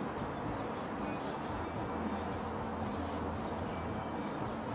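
Small birds chirping: a scattered run of short, high, falling chirps, several a second, over a steady background hiss.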